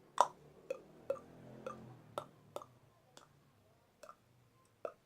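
A beatboxer's tongue clops: a run of sharp, hollow mouth clicks made by snapping the tongue off the roof of the mouth. About nine clicks at uneven spacing, the first the loudest, the later ones fainter.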